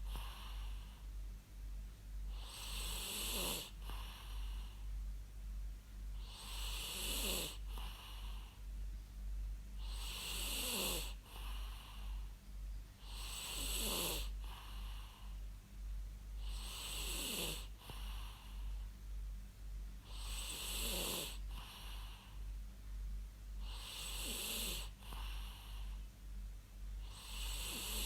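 A person snoring in a steady rhythm, about eight snores, one every three and a half seconds. Each snore has a pitch that slides downward and a hissy edge, over a faint steady low hum.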